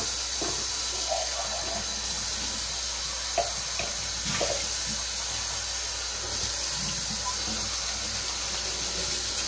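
Kitchen tap running steadily into a sink, with a few brief splashes as something is rinsed under the stream.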